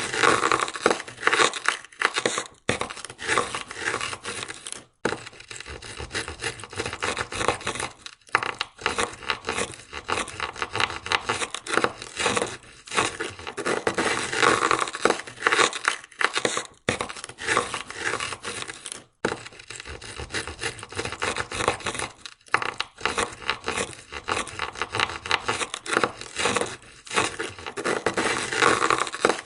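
Ice scraper scraping ice off a car window in fast, repeated strokes, breaking off briefly every few seconds.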